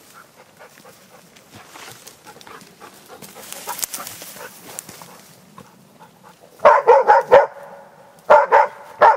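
Rustling through brush, then an East Siberian Laika barking in quick runs: about five fast barks past the middle, and another short run near the end.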